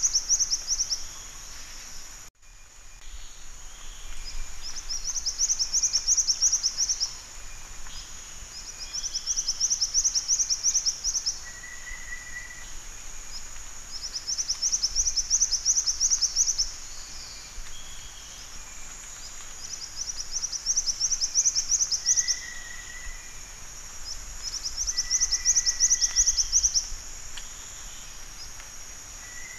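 Black-winged flycatcher-shrike song: a high, rapid trill of fast notes lasting about two seconds, repeated roughly every four seconds. A short, lower steady whistle falls between some of the trills.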